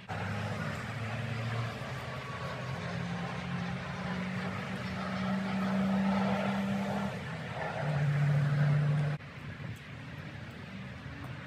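An engine running, its pitch shifting up and down in steps. It cuts off abruptly about nine seconds in.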